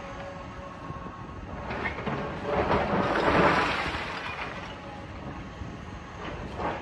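Demolition machinery working on a building, a rumbling, grinding noise of engine and rubble that swells loudest about three seconds in, then eases.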